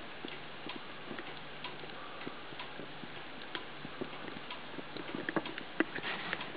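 Irregular light clicks and ticks over a faint steady hum, with a cluster of louder clicks near the end.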